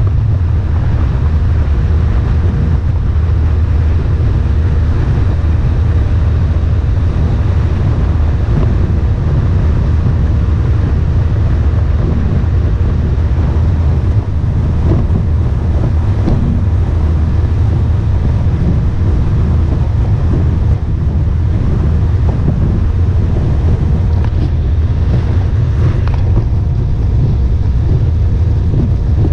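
Outboard-powered jon boats running at steady planing speed: a constant low engine drone mixed with rushing water and heavy wind on the microphone.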